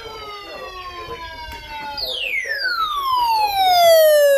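A siren winding down, its pitch falling steadily. One falling tone dies away in the first second and a half. A second starts high about two seconds in and sinks, getting louder toward the end. Faint speech sits underneath.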